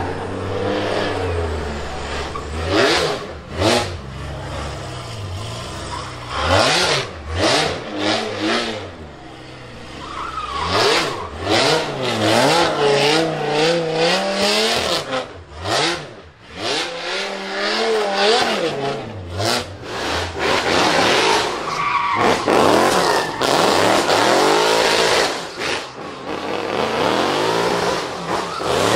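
Drift cars, among them a Dodge Viper, engines revving hard and falling away again and again through a slide, with sharp drops on lift-off, over tyres squealing and skidding.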